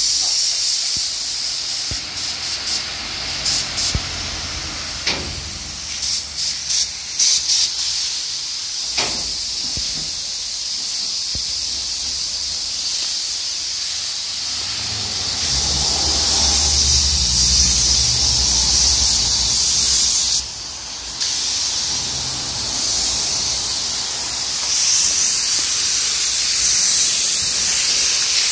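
Compressed air hissing through a gravity-feed spray gun as it sprays clear varnish onto a headlight lens. Short spurts over the first several seconds, then a long steady hiss with a brief break about two-thirds of the way through.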